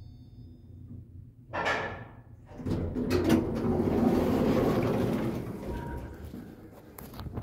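The automatic sliding doors of a 2008 Thyssenkrupp machine-room-less elevator opening, a steady rumble lasting about three seconds after a short hiss about a second and a half in. Scattered clicks run through it, and there is a sharp knock near the end.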